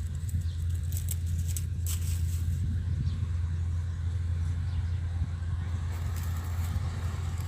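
Kubota DC93 combine harvester running steadily, a low even engine drone with a few light ticks over it.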